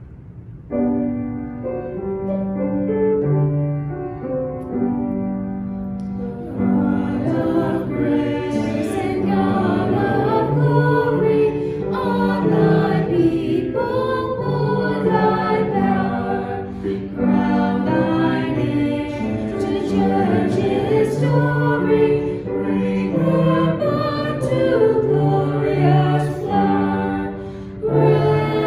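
Church music starts about a second in with an instrumental introduction, then a choir comes in singing a hymn from about six seconds in.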